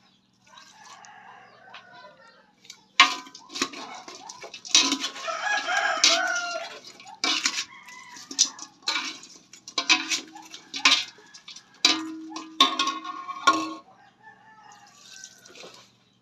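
Chickens calling loudly in a run of separate calls over about ten seconds, with a rooster crowing about five seconds in.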